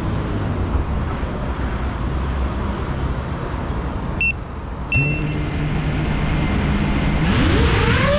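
5-inch FPV quadcopter starting up for takeoff: over a steady low rumble, two short high beeps about four and five seconds in as it arms. Its motors start humming at idle with the second beep, then rise in pitch near the end as the throttle comes up.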